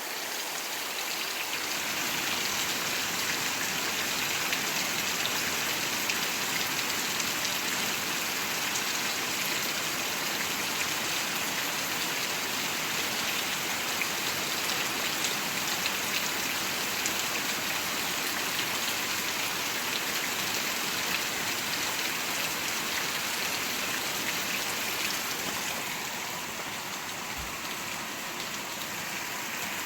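Steady rain falling, a dense hiss of drops pattering on surfaces with scattered individual drop ticks, easing slightly near the end.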